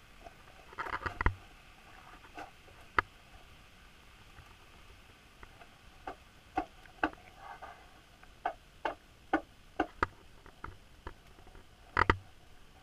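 Irregular sharp clicks and taps picked up underwater by a submerged camera, spaced from about half a second to a few seconds apart over a faint steady hiss. The loudest come in short clusters about a second in and near the end.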